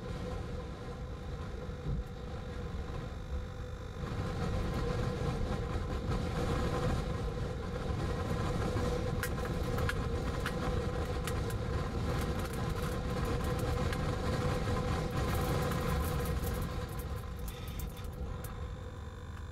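Strong storm wind rushing over the microphone, stronger from about four seconds in and easing near the end, with a steady low hum underneath. Scattered ticks of raindrops come in the second half.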